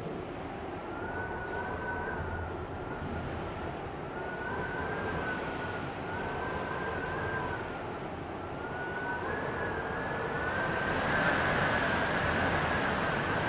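Wind blowing in a steady rush with a thin, wavering whistle that rises and falls and breaks off now and then. The gusts and the whistle swell louder from about ten seconds in.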